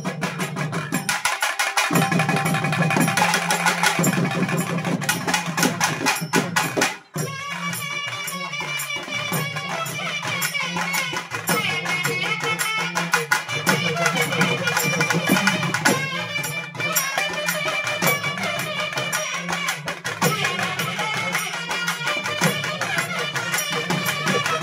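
South Indian folk festival music, amplified: strapped barrel drums and small hand-held drums keep a fast, dense rhythm under a sustained melody line. The music drops out briefly about seven seconds in, then carries on.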